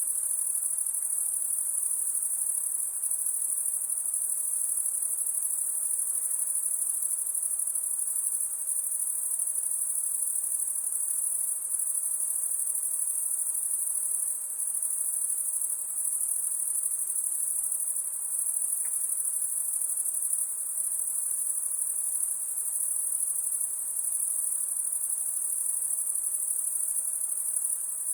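Crickets chirping in a dense, steady chorus: a high, unbroken trill with no pauses.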